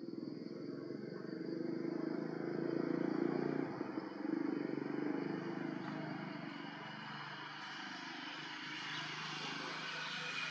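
A motor engine running steadily, a little louder around three to four seconds in, with a faint high whine sliding slowly down near the end.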